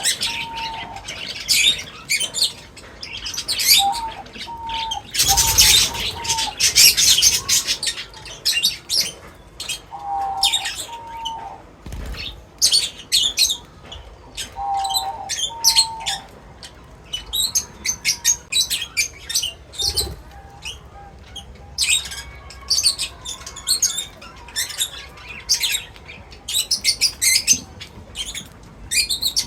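Small birds chirping busily in quick, short high notes, with a lower clipped call repeated in pairs or threes every few seconds. About five seconds in there is a brief burst of rustling, like wing flutter.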